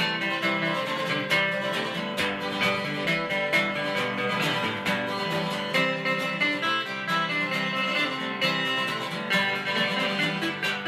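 Two acoustic guitars playing an instrumental break together, strummed and picked in a bluegrass style, with the notes ringing steadily.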